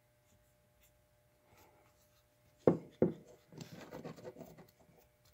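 Handling noise from a small-engine carburetor worked by hand. About two and a half seconds in come two sharp knocks a third of a second apart, then a scratchy rubbing as the carburetor body is turned and rubbed.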